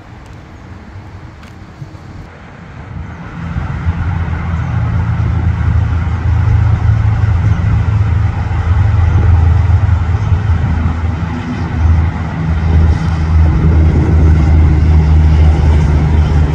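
Motor vehicle engine running close by as a loud, steady low rumble, swelling up suddenly about three and a half seconds in.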